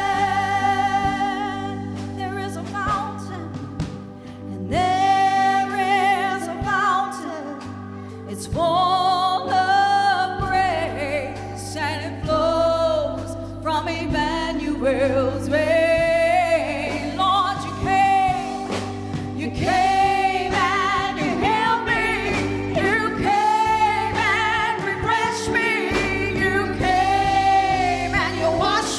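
Gospel worship music: singing with instrumental accompaniment over sustained low notes.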